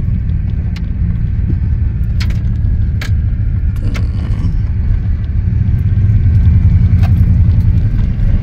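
Road noise inside a moving car: a steady low rumble of tyres and engine with light rattling clicks, growing a little louder about six seconds in.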